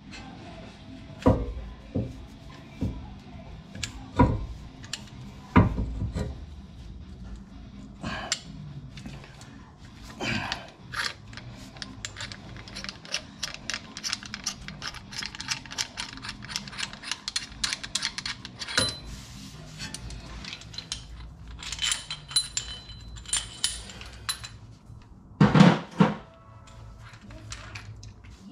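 Metal clinks and knocks of a car's disc-brake caliper and brake pads being handled and worked on by hand, scattered throughout, with a louder run of knocks near the end.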